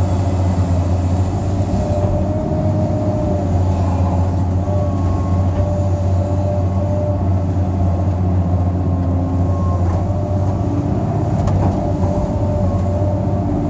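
Cat 385C L excavator's diesel engine running steadily under working load, heard from inside the cab: a constant low drone with a fainter higher whine that comes and goes as the bucket digs.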